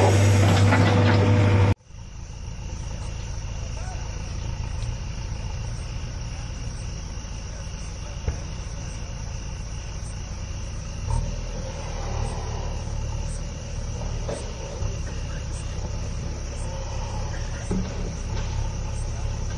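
A backhoe loader's diesel engine running loud and close, cut off abruptly about two seconds in; after that a backhoe loader's engine runs at a distance as a low steady rumble, under a steady high buzz of night insects.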